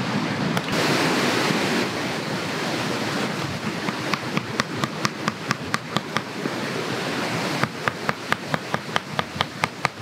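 Knife working wood and bark by hand: from about four seconds in, a quick, even run of sharp clicking strokes, about four a second, getting faster near the end, over a steady rushing background.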